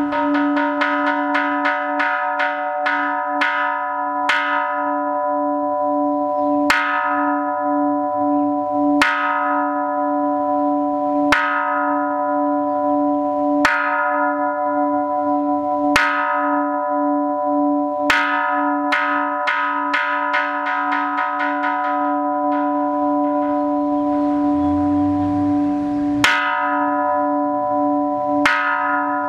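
Hanging Japanese temple bell struck with a wooden mallet, ringing with a steady low hum. It opens with a quick run of strokes that grow softer, then single strokes about two seconds apart, a second quick run partway through, and two more single strokes near the end.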